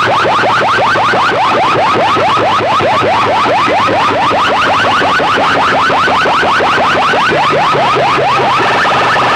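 An electronic siren-like effect played at full volume through banks of horn loudspeakers: rapid rising chirps, about six a second, that shift higher near the end.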